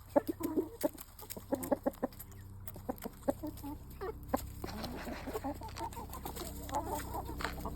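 Chickens clucking: many short calls from several hens in a flock, mixed with sharp little clicks, as they peck at scattered feed.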